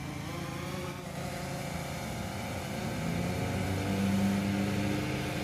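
DJI Phantom 3 quadcopter drone with its propellers buzzing in a steady hum that grows louder about three seconds in as the drone comes nearer.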